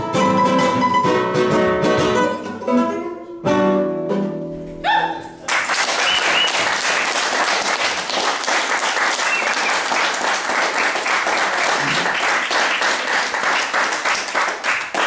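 Two nylon-string guitars playing an improvised duet, which ends on a final ringing chord about four to five seconds in; then an audience applauds.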